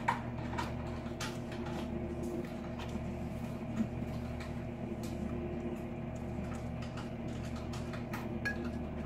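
A spatula scraping and tapping against a mixing bowl, with short light scrapes and clicks scattered throughout, over a steady appliance hum.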